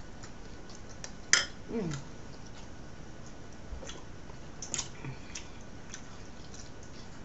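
Scattered sharp clicks and taps of a fork against a plate as fish is picked apart, the loudest about a second in. A brief falling voice sound follows just after it.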